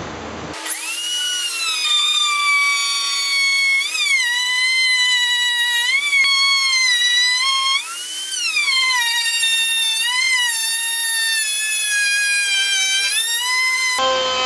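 Compact handheld router whining at high speed as it cuts a recess in wood, its pitch dipping and recovering over and over as the bit bites in. It starts about half a second in and cuts off shortly before the end.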